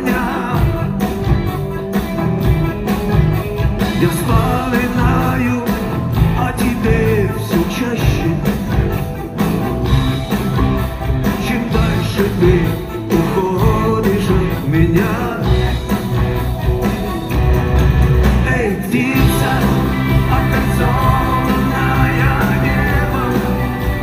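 A rock band playing live in a large hall, with electric guitars, bass and drums, and a voice singing over them.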